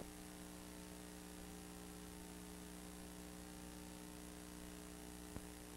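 Faint, steady electrical mains hum with nothing else recorded, and a single small click near the end.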